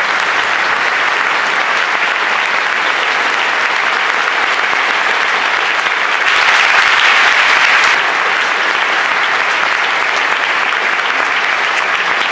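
Concert audience applauding, a dense steady clapping that swells louder for a couple of seconds about six seconds in.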